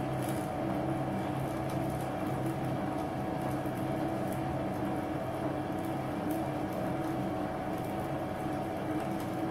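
Bench lathe running at low speed under power feed while a scissor knurling tool rolls a knurl into hard machine-grade steel. It is a steady running hum with several fixed tones, the lathe working under heavy load from the knurl.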